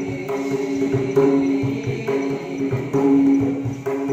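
Live Indian folk-style music: a hand drum beating about once a second over a steady sustained drone, with a faint high ringing tone above.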